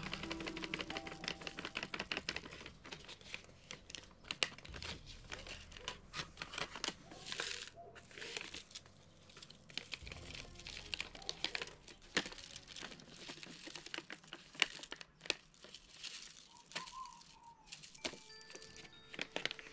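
Paper seed packets crinkling with many small, quick clicks and ticks as tomato seeds are handled for sowing.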